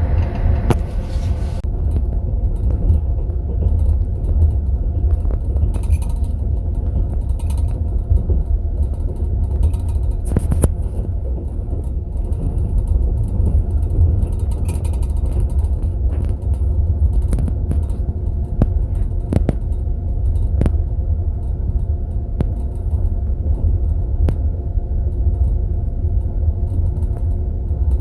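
Passenger train compartment on the move: a steady low rumble of the carriage running on the rails, with a few short sharp clinks at irregular moments, teaspoons rattling in tea glasses in metal holders.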